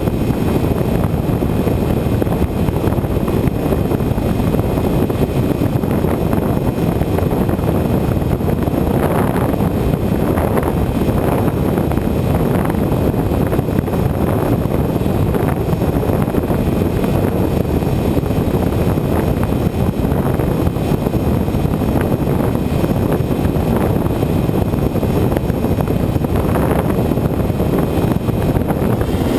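Steady rushing wind noise from airflow over the onboard camera's microphone on a Bixler electric RC plane in flight, with a faint steady high whine in the background.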